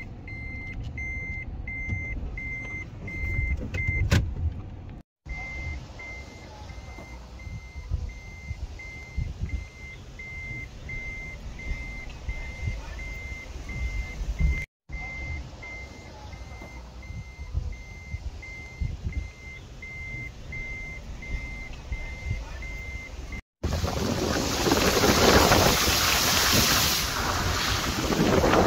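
A vehicle's warning beeper sounds over a low engine rumble, one high beep repeating about twice a second. Near the end the beeping stops and a loud, steady rushing noise takes over.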